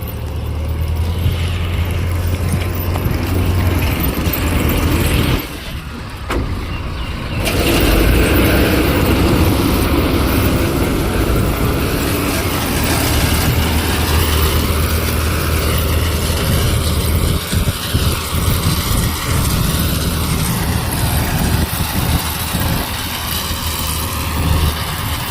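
An engine running steadily with a low hum and a loud mechanical clatter. It drops off briefly about six seconds in.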